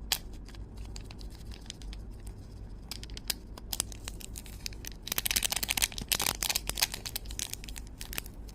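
Crinkling and rustling of a small powder packet as it is squeezed and tapped to empty the powder out, with scattered sharp clicks and a dense run of crackly rustling from about five to seven seconds in.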